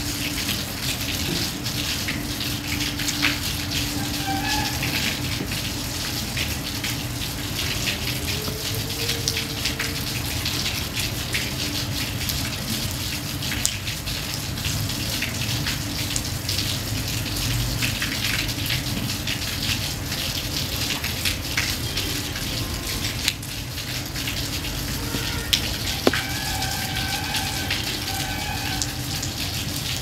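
Steady rain falling, with many separate drop hits heard through it.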